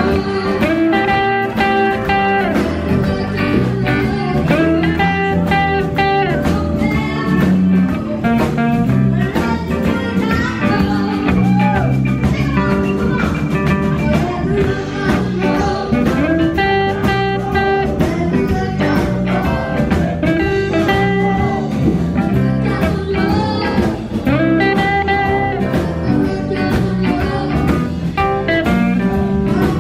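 Live blues band playing, with electric guitar, bass guitar, drums and keyboard under a lead line at the microphone.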